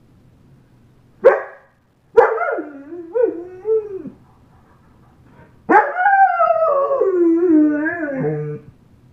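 An 8½-month-old German Shepherd howling: a short sharp yelp about a second in, then a wavering howl of about two seconds, and after a pause a longer howl of about three seconds that wavers and slides down in pitch.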